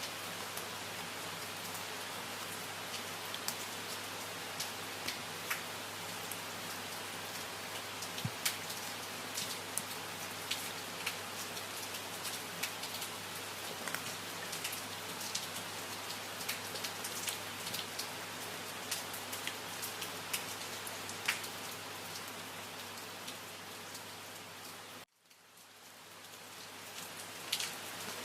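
Steady rain falling, with scattered individual drops ticking distinctly above the even patter. About 25 seconds in, the rain cuts out abruptly and then swells back up over the next couple of seconds.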